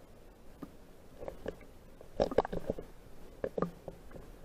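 River water heard underwater from a submerged action camera: a muffled, gurgling background with scattered short knocks and bubbly pops, a cluster of them about two seconds in and more about a second later.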